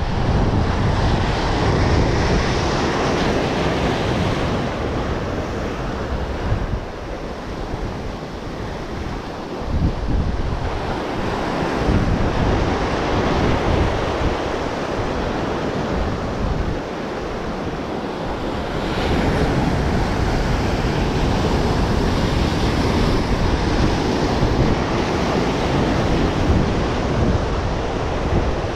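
Sea waves surging and breaking onto the shore, the wash swelling and easing every few seconds, with wind buffeting the microphone.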